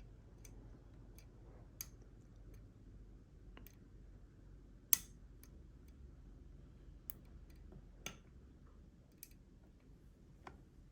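Lock-picking in a Schlage Everest pin-tumbler lock: a hook pick and tension wrench working the pins give sparse, irregular small clicks, with one sharper click about five seconds in.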